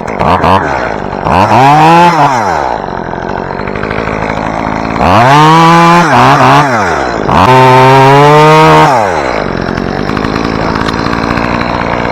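Chainsaw engine blipped a few times, then idling and revved to full throttle three times for a second or two each, cutting through small spruce limbs while climbing.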